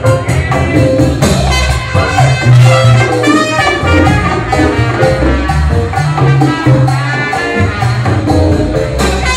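Live salsa band playing a jazz tune: trumpets and baritone saxophone carry the melody over a walking bass line, with timbales, bongos and keyboard keeping a steady Latin rhythm.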